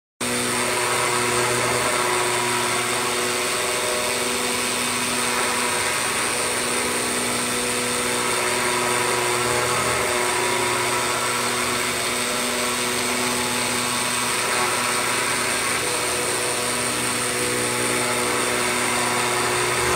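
AOKE flatbed CNC digital cutting plotter running while it cuts 3M compound foam sheet: a loud, steady machine hum with a thin high whine over an even hiss.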